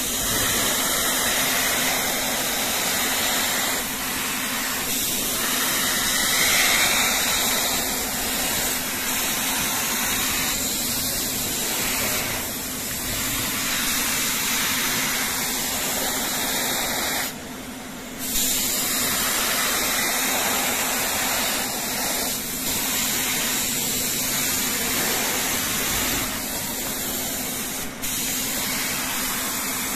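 Compressed-air spray gun hissing steadily as colour is sprayed onto foam shoe soles, with a steady low hum underneath. The spray breaks off briefly once, a little past halfway.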